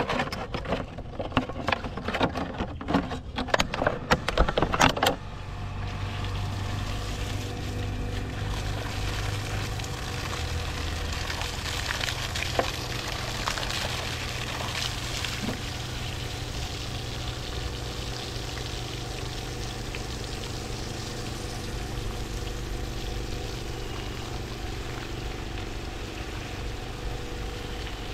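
About five seconds of clattering knocks, then a centrifugal water pump running steadily with water pouring.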